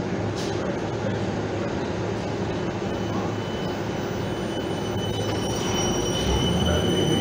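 Suburban electric multiple-unit train at the platform with a steady rumble, starting to pull away: a high whine comes in and the rumble grows louder about five seconds in.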